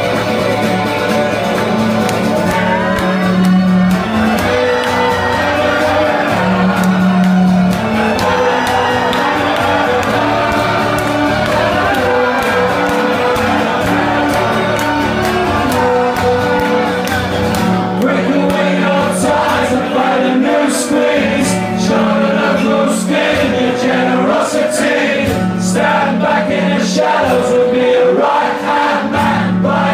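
Live guitar music: an acoustic guitar and an electric guitar playing together, with voices singing. The strumming grows busier in the second half.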